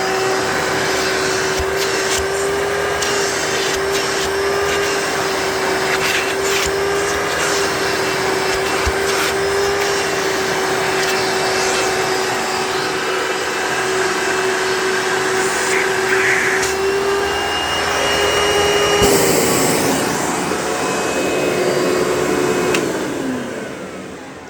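Hoover Bagless Twin Chamber System upright vacuum running with a steady motor whine and scattered small clicks. About 19 s in the whine changes and the sound turns rougher. Near the end it is switched off and the motor winds down.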